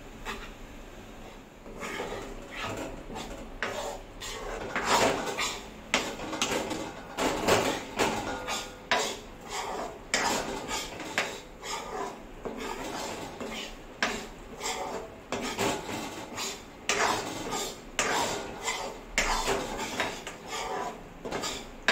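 Steel spatula scraping and knocking against a black kadhai as gram flour roasting in ghee is stirred, in irregular strokes about once or twice a second.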